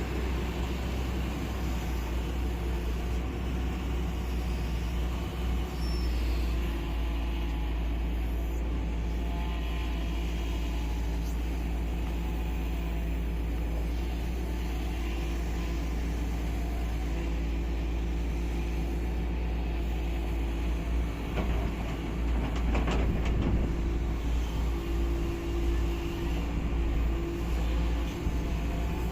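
Diesel engine of a heavy earthmoving machine running steadily at working load. About two-thirds of the way through it grows louder, with some clanking and a brief held whine.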